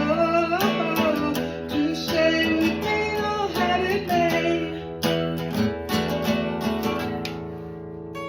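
Acoustic guitar cover of a 90s rock song, strummed and picked, with a gliding melody line over it for the first five seconds or so; the playing then settles and grows quieter towards the end.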